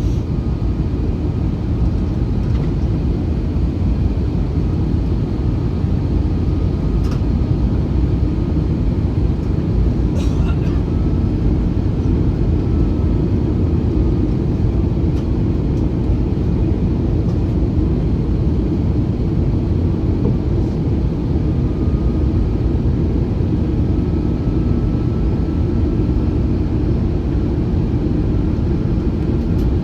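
Steady cabin noise inside an Airbus A321 airliner: an even low drone of the engines and air rushing past the fuselage, with a few faint ticks.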